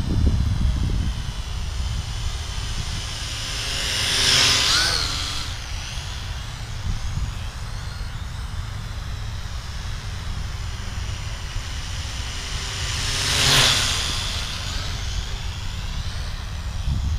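Vivitar AeroView GPS quadcopter's motors and propellers whining as it flies past close by twice, about four seconds in and again about three-quarters of the way through, each pass swelling and fading with a sweep in pitch, over a steady low rumble.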